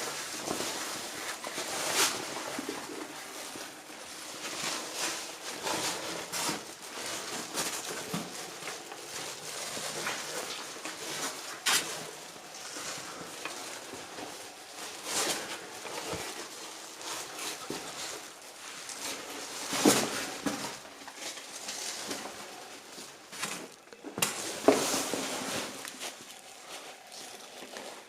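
Irregular rustling and scraping with scattered small clicks and several sharper knocks, echoing in a small enclosed space.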